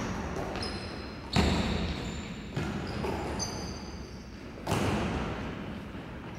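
Basketball bouncing on a hardwood court and sneakers squeaking during play, in an echoing hall. Louder thuds come about a second and a half in and again near five seconds.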